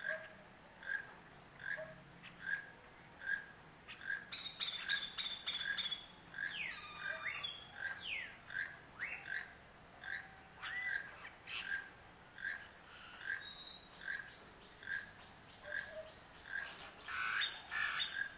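Keel-billed toucan calling: a dry, frog-like croak repeated steadily about once every 0.8 seconds.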